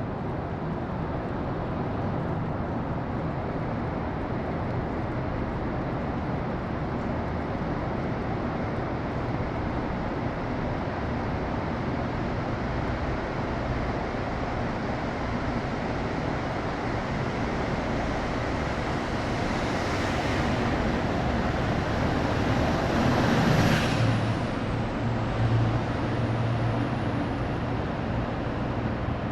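Steady rumble of road traffic. About twenty seconds in, a louder hiss swells and peaks, like a vehicle passing close, and a deeper engine hum follows near the end.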